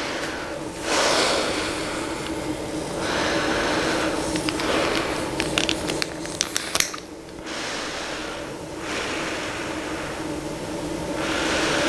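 Air from a CPAP machine hisses through a Fisher & Paykel Brevida nasal pillow mask with its vent diffuser fitted, swelling and easing with each breath. A faint steady hum runs underneath. About halfway through there is a run of sharp clicks and rubbing as fingers handle the mask.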